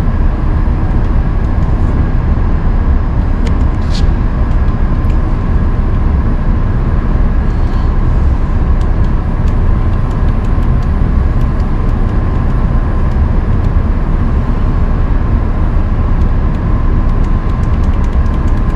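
Steady low rumble with a constant faint hum from running shop machinery around a CNC stone bridge saw, with a few faint light clicks, one about four seconds in and several near the end.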